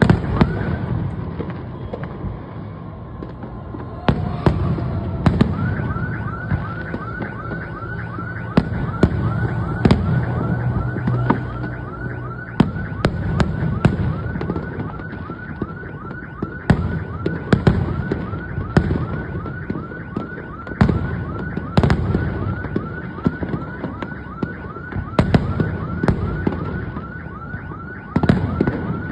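Fireworks bursting in many sharp bangs over a low rumble. From about five seconds in, an alarm sounds a quick repeating rising whoop, about three a second, steadily under the bangs, like a car alarm set off by the blasts.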